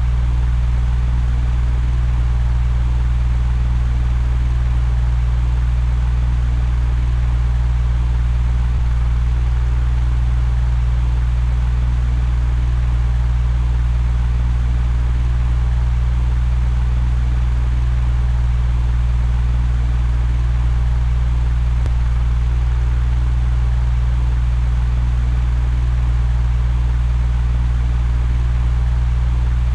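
Electric fan running steadily: a constant deep hum under an even rush of air, unchanging throughout.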